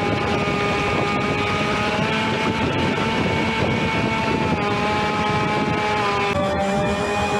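Kyosho RC jet ski's electric motor and jet pump whining steadily over rushing water, the pitch stepping up and down a few times with the throttle and dropping lower near the end.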